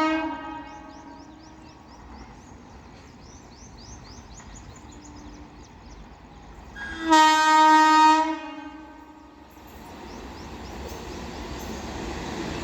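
WAP-7 electric locomotive's horn: the end of one blast right at the start, then a long, loud blast of about a second and a half in the middle. After it the rumble of the approaching train builds steadily toward the end.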